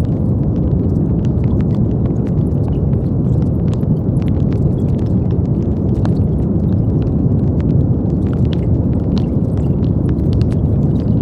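Brown noise: a steady, deep, even hiss with most of its weight in the low end, faintly flecked with scattered tiny crackles.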